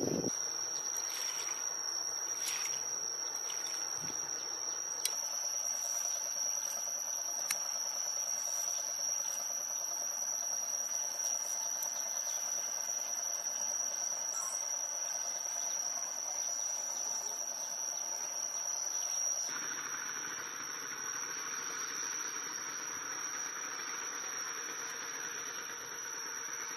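Insects droning outdoors with one steady, high-pitched tone, over soft outdoor ambience, with a few light taps in the first several seconds.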